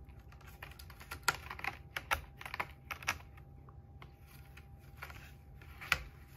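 Cats moving on a corrugated cardboard cat scratcher: irregular light clicks and crackles of cardboard, busiest in the first half, with one sharper click near the end.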